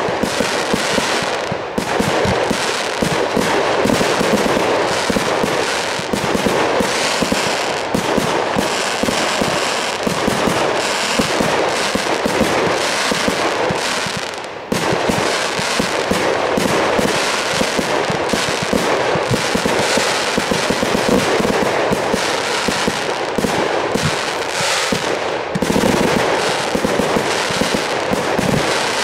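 Aerial fireworks shells bursting in rapid succession: a dense, unbroken volley of bangs and crackle, with brief lulls about two seconds in and near the middle.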